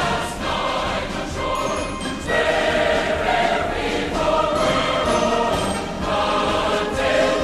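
Choral music with accompaniment, a choir holding long chords that change about two seconds in.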